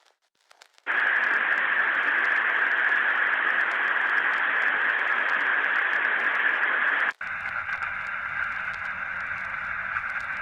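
Radio static: a few faint crackles, then a loud steady hiss starts about a second in. It cuts off abruptly about seven seconds in and is replaced by a quieter static with faint steady tones underneath.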